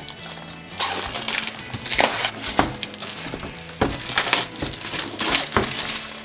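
Plastic packaging crinkling and toy pieces being handled, with irregular sharp clicks and clacks.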